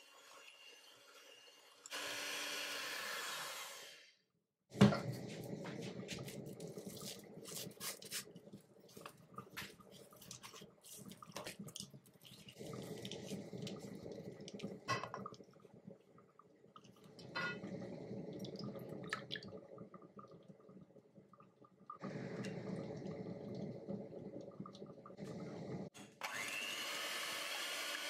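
Electric hand mixer running in a mixing bowl in short stretches, with a long stretch in the middle of a spatula scraping and knocking against a bowl while folding batter. A sharp knock comes about five seconds in, and the mixer starts up again with a rising whine near the end.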